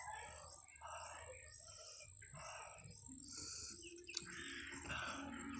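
Birds chirping over and over, with a steady high-pitched whine throughout; a low droning tone joins about three seconds in.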